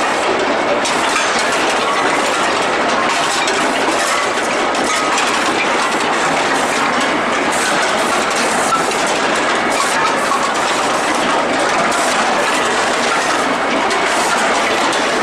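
Steel ball hot-rolling line running: continuous loud metallic clattering and rattling, with no break.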